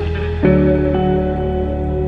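Background music of sustained chords, moving to a new chord about half a second in.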